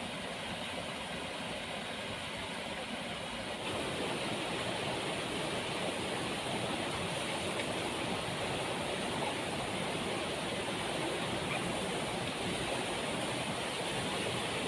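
Waterfall's steady roar of rushing water, becoming a little louder and fuller about four seconds in.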